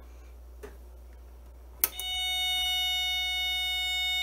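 A sharp click a little under two seconds in, then a 555 timer oscillator driving a small speaker starts up: a steady, harsh square-wave tone with strong overtones, held without a break.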